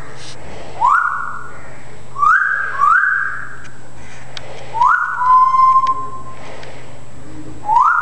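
Timneh African grey parrot whistling: five short whistles, each swooping quickly up and then held, with one lower, steady whistle just after the fourth.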